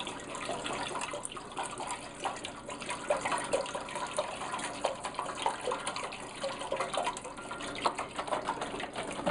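Liquid soup ingredients being poured into a cooking pot: a steady stream of liquid with many small irregular splashes.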